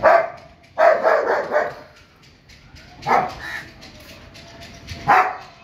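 German Shepherd barking at a crow perched on a wall: one bark at the start, a quick run of several barks about a second in, then single barks near three and five seconds.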